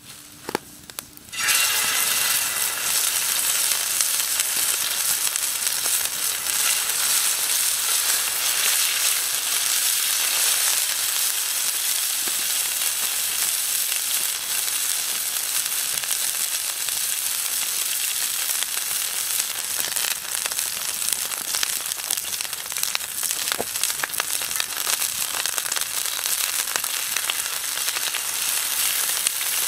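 Steaks laid into a hot cast iron pan with onions, hitting the metal about a second and a half in and then searing with a loud, steady sizzle.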